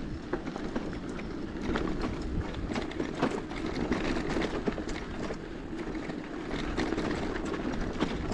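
Bicycle being ridden along a dirt road: a steady rush of tyre and riding noise with many small irregular clicks and rattles from the bike over the bumps.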